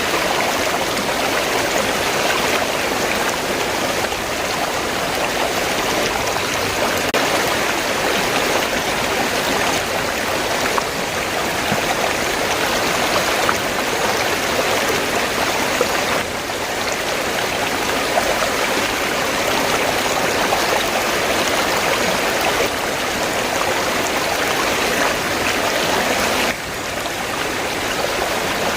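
River water rushing and burbling in a steady, continuous flow.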